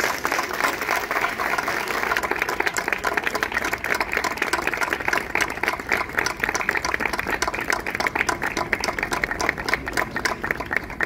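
Audience applauding, a steady patter of many hands clapping that stops near the end.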